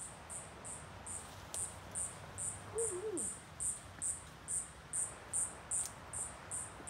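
Cricket chirping steadily: short, high-pitched chirps a little over twice a second.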